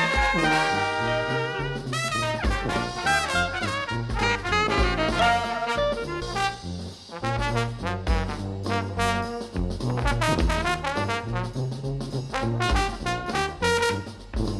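Background music: an upbeat brass-led jazz tune with horns over a steady bass line.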